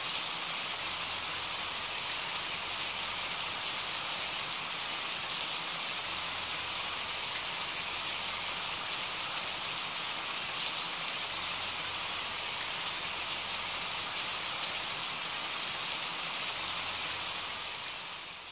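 Steady rain falling, an even hiss with fine drop patter, fading out near the end.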